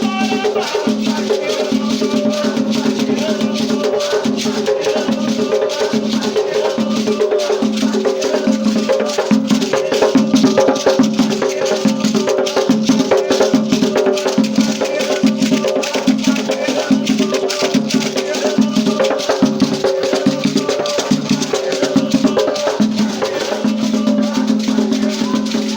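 Batuque ritual music: fast, dense shaken rattles over a rhythmic drum pulse, with steady sung or chanted tones beneath.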